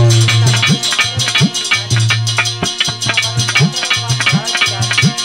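Instrumental passage of Indian folk devotional music with no singing. Fast shaker-like percussion clicks run throughout, a hand drum plays bass strokes that bend upward in pitch, and a low sustained note drops out about a second in.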